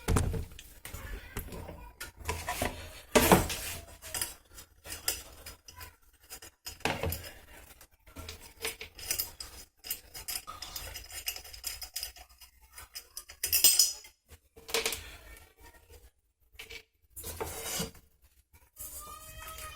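Small metal parts and screws clinking and knocking while they are handled as screws are taken out and refitted to mount a ceiling fan's LED light unit. The knocks are irregular, with a few louder ones.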